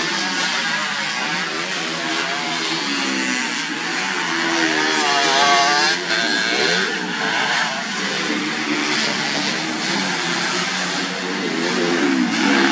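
Grasstrack race motorcycles with standard underbone ('bebek') engines revving hard as they accelerate and shift gears, the engine pitch rising and falling again and again as several bikes pass.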